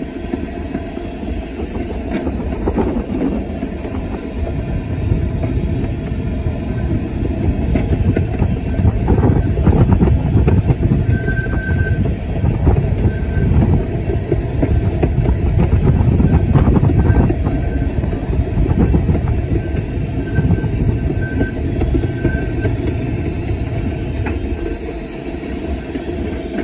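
Running noise inside the cab of the No 5 steam locomotive under way: a steady rumble and clatter of the locomotive and its wheels on the track, growing louder through the middle and easing off near the end. Short high squeals come and go, the longest about a third of the way in and again at the end.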